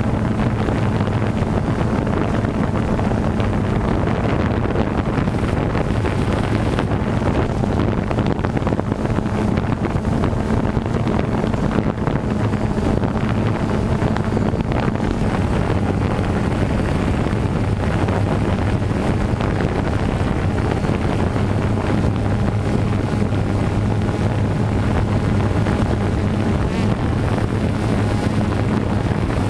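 DJI Phantom 2 quadcopter's motors and propellers humming at a steady, unchanging pitch, heard from the GoPro mounted on the drone, with wind buffeting the microphone.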